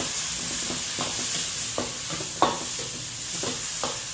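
Chicken gizzards and liver sizzling in hot oil in a wok, throwing up heavy steam, with a stirring utensil knocking and scraping against the wok every half second or so; the loudest knock comes about two and a half seconds in. The hard sizzle and steam come from the giblets' high water content, which is what keeps the oil from flaring.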